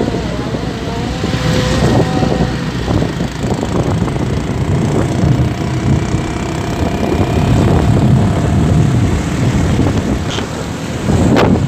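Heavy diesel trucks driving past one after another, their engines and tyres making a loud, steady rumble.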